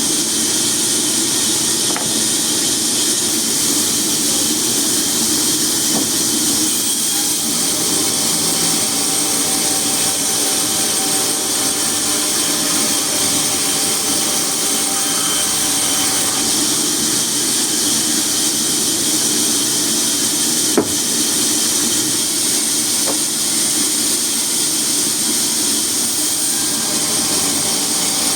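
A machine running steadily with a strong hissing whoosh that does not change, and a single sharp click about two-thirds of the way through.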